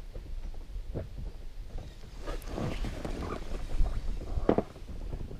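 Scattered knocks and rustles of handling in a small boat over a steady low wind rumble on the microphone, the loudest a sharp knock about four and a half seconds in.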